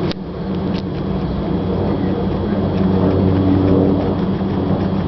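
A steady low motor drone with a pitched hum. Two crisp crunches in the first second, as a guinea pig bites into a raw carrot, are followed by faint chewing clicks.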